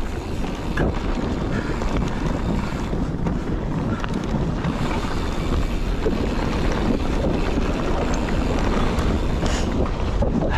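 Mountain bike riding on a dirt forest trail: steady wind noise on the microphone over the rumble of the tyres on the dirt.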